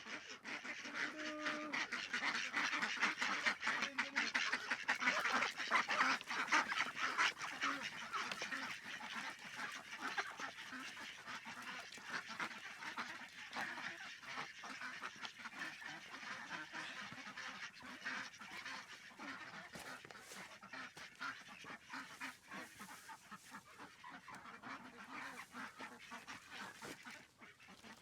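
A flock of Campbell ducks quacking and chattering, many calls overlapping. It is loudest in the first ten seconds or so, then thins out and gets quieter.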